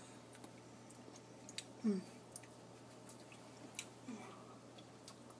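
Faint wet mouth sounds of someone licking dripping barbecue sauce, with scattered soft clicks and two brief vocal sounds, about two and four seconds in.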